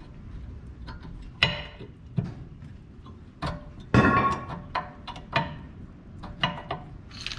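Brake pad's steel backing plate clinking and clicking against the caliper bracket as the outer rear pad is fitted and slid in and out to check it moves freely. A series of sharp metallic clicks, the loudest a ringing clank about four seconds in.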